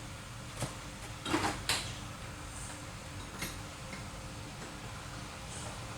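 A few light metallic clicks and a short scrape as a part is taken off a mechanical fuel injection pump, over a faint steady hum.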